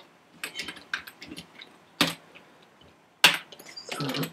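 Typing on a computer keyboard: irregular keystrokes, with two louder key strikes about two and three seconds in.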